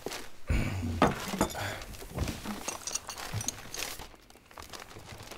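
Paper crinkling in a man's hands, with a soft low thump about half a second in as he sits down on a sofa; animated-film foley.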